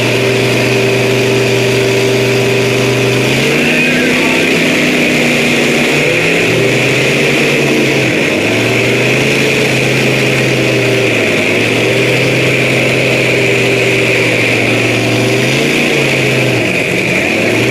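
Pickup truck engine running hard under heavy load during a truck pull. It holds a steady high pitch that sags and climbs back again about five times as the truck strains.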